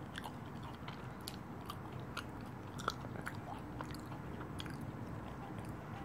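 A person quietly chewing a mouthful of cake, with soft, irregular wet clicks of the mouth; one click about three seconds in is a little louder.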